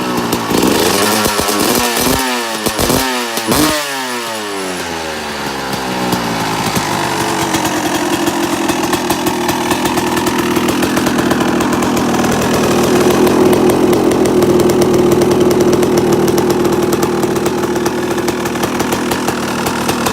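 2002 Honda CR250R's two-stroke single-cylinder engine, through an FMF expansion pipe and a custom shorty silencer cut from the stock one. It is blipped sharply about three times in the first few seconds, then settles into a steady, raised idle that builds slightly and holds.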